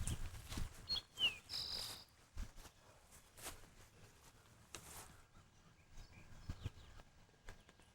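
A bird chirps briefly about a second in: a few short high notes, one falling, then a held one. Scattered faint clicks and knocks run through the rest.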